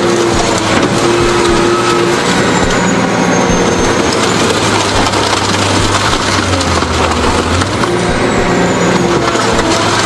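Heavy scrap-processing machinery running under load, a steady loud grinding and crushing din with droning tones that slowly rise and fall in pitch.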